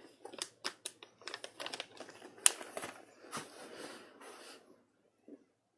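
A plastic snack bag crinkling and rustling as it is handled, in irregular bursts, with one sharp crackle about two and a half seconds in.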